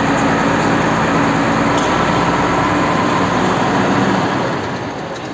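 Heavy machinery running steadily, a dense loud noise with a low hum under it, easing off a little near the end.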